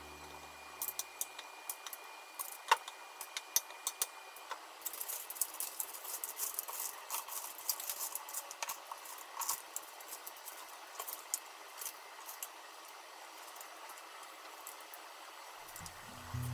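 Crushed kaki-no-tane rice crackers crackling and rustling as fingers press the crumbs onto batter-coated cheese. It starts as a few sharp clicks and becomes a dense, light crackle from about five seconds in.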